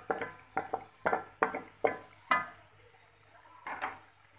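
Spoon knocking against a metal cooking pot and the plate of spices being emptied into it: about seven quick knocks, each ringing briefly, over the first two and a half seconds, then one more near the end.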